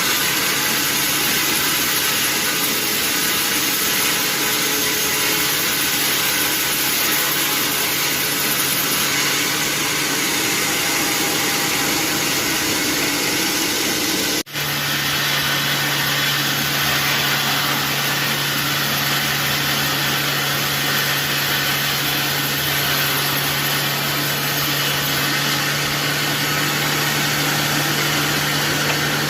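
Sawmill machinery running steadily, a constant hum under a loud even noise, with a momentary break about halfway through.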